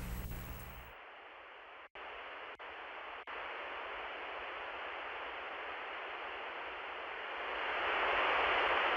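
Television static hiss, steady, briefly cutting out three times around two to three seconds in and swelling louder near the end. A low hum underneath stops about a second in.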